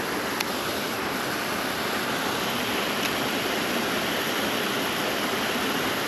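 Mountain stream water running steadily, an even, unbroken rushing hiss.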